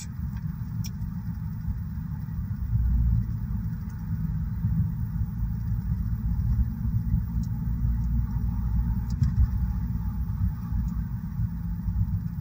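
Steady low rumble of a car driving along, engine and road noise heard from inside the cabin.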